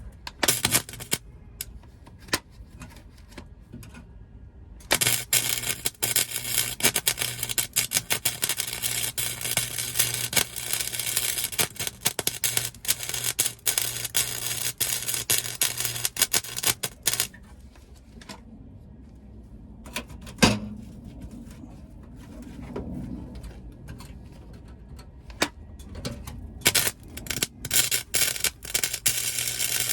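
Welding arc crackling on thin sheet-steel floor pans in two runs: a long one of about twelve seconds starting about five seconds in, and another starting near the end, each with a steady low hum under it. A single sharp knock comes in the quieter stretch between them.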